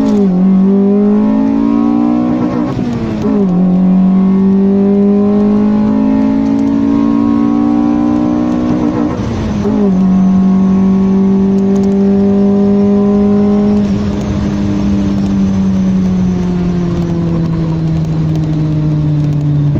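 Honda B16A 1.6-litre DOHC VTEC four-cylinder engine on its stock exhaust, pulling through the gears. The engine note climbs, then drops sharply at each upshift, three times in the first ten seconds. It then holds a steady note for a few seconds and falls away slowly near the end as the car eases off.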